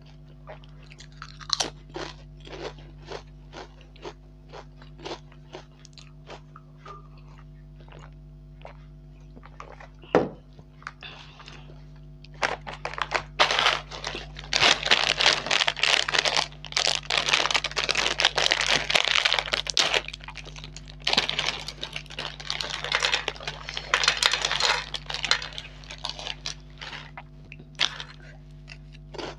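Close-miked crunching of crisp fried snacks being chewed, sharp crunches about two a second. About halfway through this gives way to loud, dense crinkling of a plastic snack packet being handled and emptied onto a plate, which runs for most of the rest with brief breaks.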